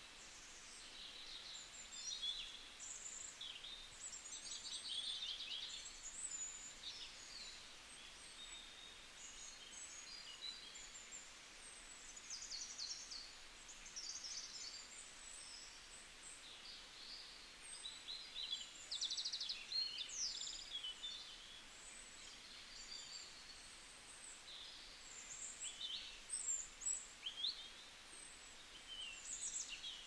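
Small songbirds chirping and trilling: many short, high calls overlapping throughout, with a few rapid trills, over a faint steady hiss.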